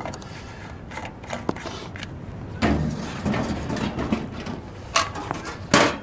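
Handling sounds of a portable reflective kerosene heater being refuelled: the fuel tank is set back into the heater with rustling and clattering, then a few sharp clicks and knocks near the end.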